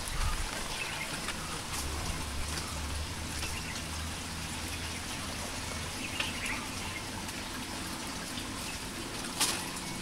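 A steady hiss of background noise, with a low hum in the first half, a few faint high chirps about six seconds in and a sharp click near the end.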